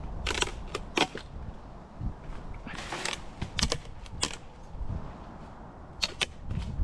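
Scattered sharp clicks, snaps and knocks with rustling leaves, from sycamore branch wood and twigs being handled and pulled through the canopy.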